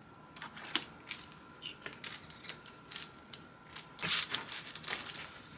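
Scattered light clicks and taps of small tools and parts being handled on an opened laptop, with a busier patch of clicking about four seconds in.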